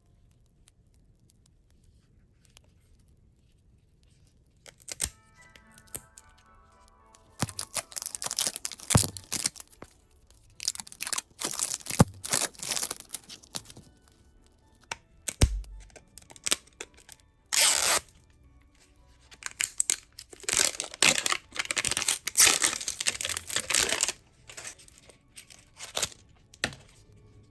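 Toy packaging being torn open and crinkled by hand in repeated bursts, starting a few seconds in. A brief run of chime-like tones comes just before the tearing begins.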